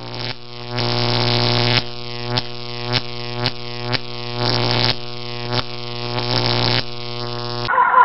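Eerie droning background music: a low, sustained buzzing drone with a pulse about twice a second and swelling hisses between the pulses. It cuts off suddenly near the end.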